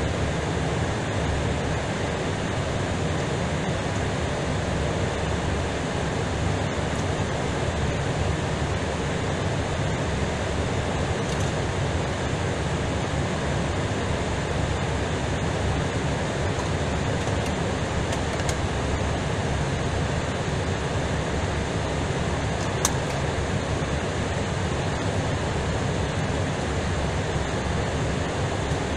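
Steady, even rushing cabin noise inside an Airbus A320ceo cockpit while the airliner taxis, with one faint click about three-quarters of the way through.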